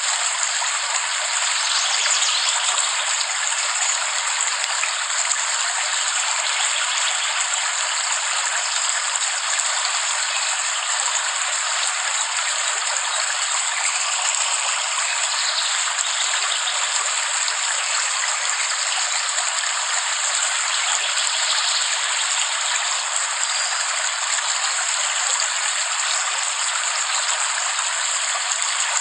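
Steady rain, an even hiss that holds unchanged throughout, with no low rumble and no thunder.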